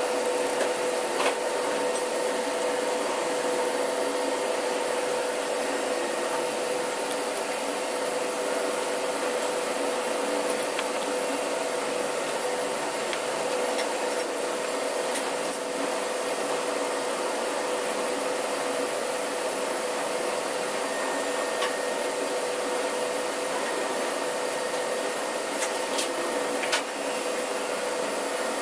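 Steady droning hum of running machinery and ventilation, with a few light metallic clicks and taps as fuel injection pump parts are handled.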